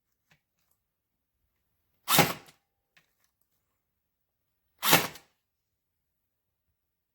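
Greenworks 24V cordless T50 stapler firing brad nails: two sharp shots about three seconds apart, each dying away quickly.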